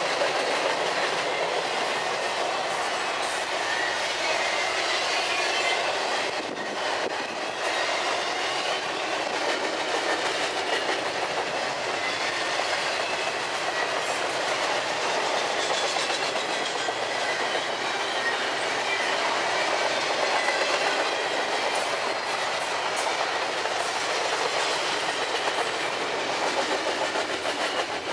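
Double-stack intermodal container train rolling past at speed: a steady rush and clatter of steel wheels on the rails as the well cars go by.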